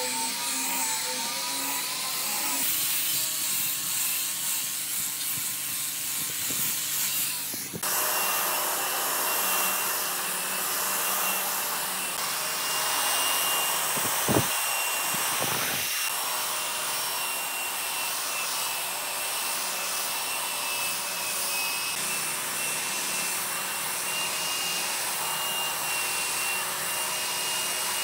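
An angle grinder with a sanding disc running while it grinds over an epoxy-resin-and-wood tabletop. About eight seconds in it gives way to a Makita belt sander running steadily with a high whine, sanding the epoxy surface.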